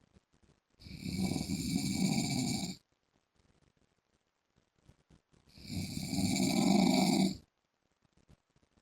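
A man snoring, loud and very regular: two long snores of about two seconds each, roughly five seconds apart.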